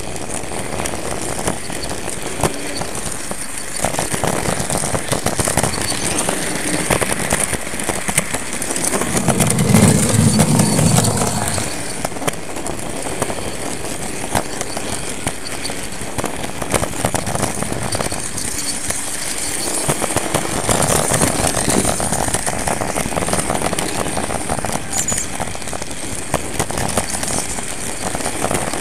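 HO-scale model train running along its track, heard from a camera riding on the train: a continuous rattle of wheels on the rails with many small clicks. A louder low rumble comes in about nine seconds in and stops about two and a half seconds later.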